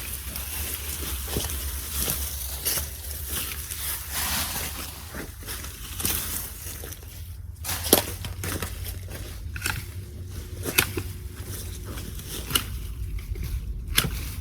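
Hand loppers cutting through Pittosporum branches, with several sharp snips among the rustle and crackle of leafy branches being pulled and handled.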